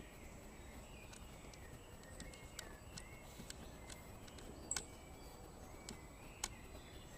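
Quiet room tone with a few scattered light clicks from the ratchet being handled, two of them sharper near the end, and faint bird chirps in the background.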